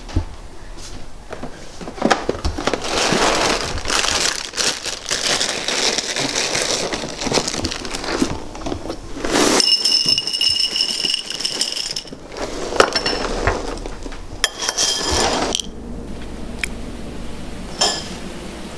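Dry cereal pouring and rattling into a ceramic bowl, with clinks against the bowl. A steady high two-note tone sounds for about two seconds near the middle and again briefly a few seconds later.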